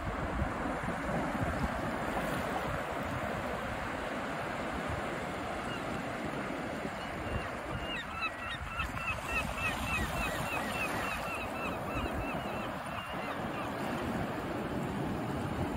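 Surf washing in along the shore with wind on the microphone, steady throughout. From about eight seconds in, a gull gives a quick run of short calls, about four a second, for a few seconds.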